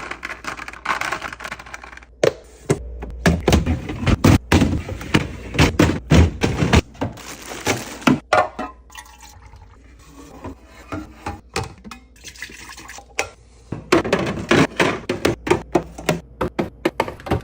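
Fridge restocking: a rapid run of taps, clicks and knocks as items are handled and set into the fridge, with liquid being poured into a container in places.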